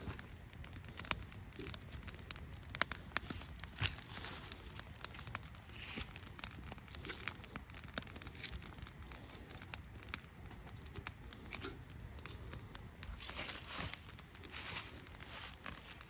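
Dry split wood being handled and pushed into a small smoking campfire: irregular snaps and crackles with rustling and crunching of wood and dry leaves.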